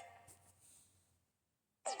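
A mobile phone ringtone played through the handset's small speaker dies away during the first second, followed by a short silence. The next ringtone starts abruptly near the end.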